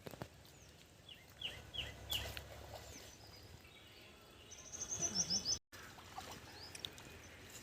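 Birds chirping over faint outdoor background noise: a few short down-slurred chirps, then about five seconds in a quick run of high down-slurred notes. The sound cuts out for an instant just before six seconds.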